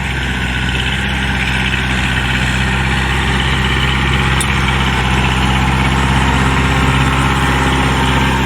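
Kubota DC-105X combine harvester's diesel engine and threshing gear running steadily under load while harvesting rice, growing slightly louder across the stretch.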